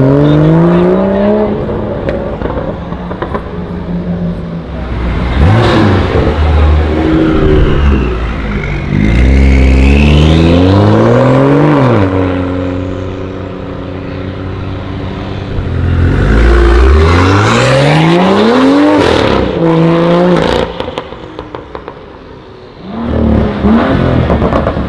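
BMW M2s with Akrapovic exhausts accelerating hard in several separate runs, the turbocharged straight-six's note climbing through the revs each time.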